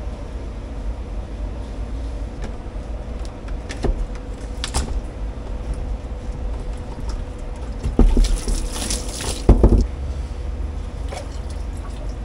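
Plastic knocks and a burst of sloshing, splashing water as the housing of a whole-house water filter is unscrewed and the clogged cartridge is lifted out, ending in a heavy thump just before ten seconds. A steady low hum runs underneath.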